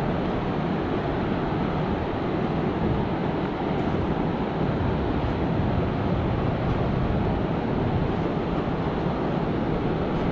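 Flooded creek in high water rushing over a completely submerged rock ledge: a steady, unbroken rush of whitewater.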